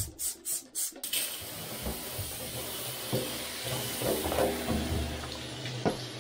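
A fast, regular pulsing, about four a second, stops about a second in. Then a hand-held shower hose sprays water onto a soapy plastic car center-console frame in a bathtub, with a steady hiss and a few knocks as the part is handled.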